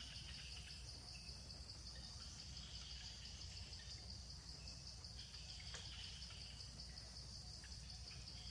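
Faint, steady outdoor insect chorus: a high, finely pulsing drone with softer chirring swelling in and out, over low background rumble and a few faint ticks.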